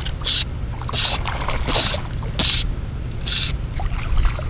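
Fly line being stripped in by hand: five short swishing hisses, one about every three-quarters of a second. A steady low wind rumble on the microphone runs underneath.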